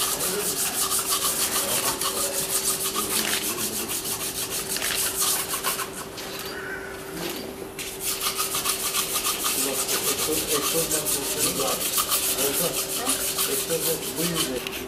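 A hand tool scraping or brushing along a metal engine cylinder head in rapid back-and-forth strokes, with a brief lull about halfway through.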